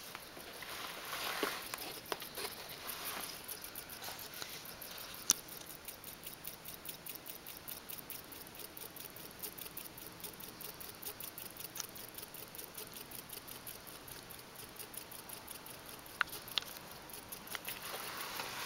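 A small battery-powered motor spinning a toy jet's propeller, with a fast, even ticking throughout. There is some rustling handling in the first few seconds and near the end, and a few sharp clicks.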